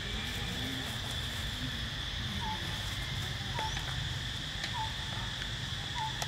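Outdoor insect drone: a steady high buzz, with a short falling chirp repeated about every second and a quarter from about halfway in.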